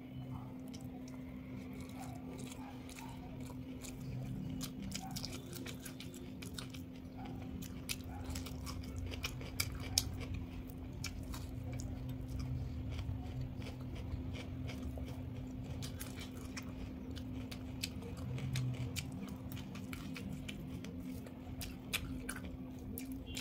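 Close-miked eating: a person chewing a meal of rice with mashed vegetable bhortas and fried okra, with many sharp mouth clicks and bites. A steady low hum runs underneath.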